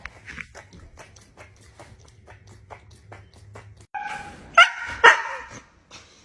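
A run of faint clicks, then a dog gives a short high whine and two sharp barks about half a second apart, near the end.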